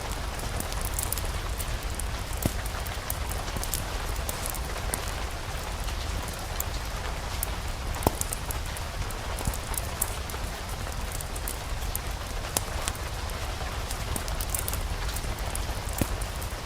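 Steady rain mixed with a crackling fireplace fire: scattered sharp pops and ticks, the loudest about eight seconds in, over a constant low rumble.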